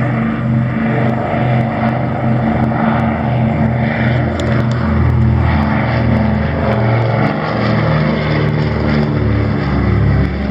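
PBY Catalina's twin Pratt & Whitney R-1830 radial engines and propellers droning loudly as the flying boat makes a low flyby, the two engines beating against each other in an even pulsing throb.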